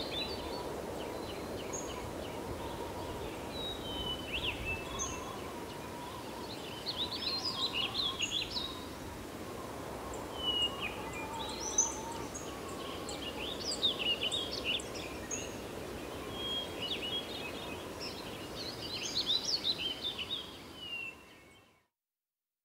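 Countryside ambience: many small birds chirping and trilling in bursts over a steady background rush, fading out to silence near the end.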